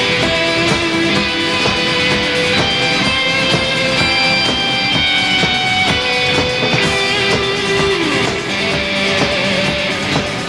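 Live rock band playing an instrumental break: a held electric-guitar melody over strummed guitar and a steady beat.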